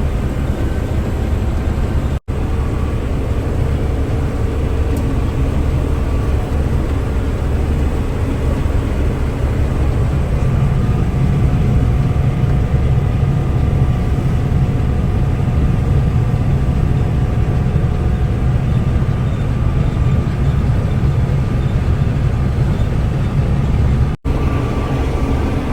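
Combine harvester running steadily while cutting ripe spring oats, heard from inside the cab: a dense low drone with a faint steady whine above it. The sound drops out very briefly twice, about two seconds in and near the end.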